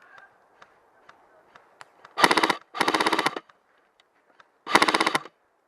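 Airsoft gun firing three short full-auto bursts of rapid, evenly spaced shots: two in quick succession, then a third about a second later.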